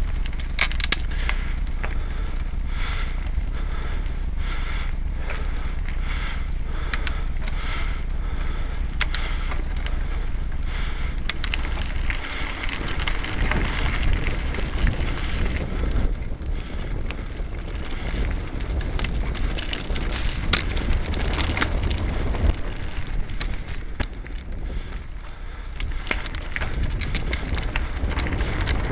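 Mountain bike ridden along a dirt singletrack, heard from the rider's camera: tyres rolling over the dirt with a steady low rumble, while the bike rattles and clicks over bumps and roots.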